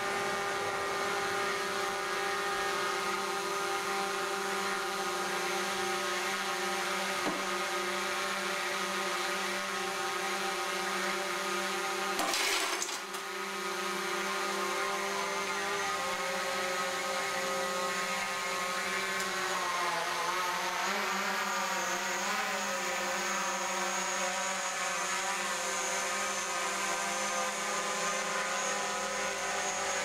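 Steady electrical hum with a buzzing tone from a burning microwave oven, wavering briefly about twenty seconds in. A single sharp crack sounds about twelve seconds in.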